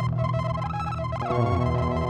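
Overdubbed Roland GR-55 guitar synthesizer music: layered sustained synth tones over a steady low drone, with pitches sliding downward a little past halfway.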